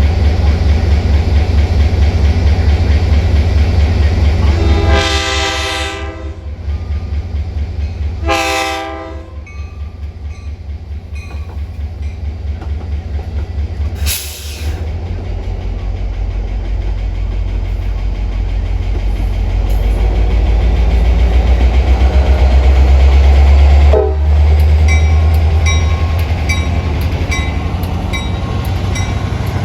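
A Metra commuter train's locomotive horn sounds two short blasts about three seconds apart, over the loud low rumble of the train. A regular clicking sets in near the end.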